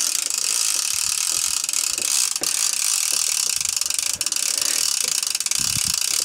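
A conventional fishing reel's drag ratchets in a fast, continuous buzz of clicks as a hooked goliath tigerfish pulls line off against the bent rod.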